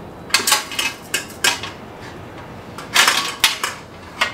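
Metal parts of a Jumbo Joe kettle grill clinking and clattering against each other as hardware is fitted into the lid by hand: several short clusters of sharp metallic clicks.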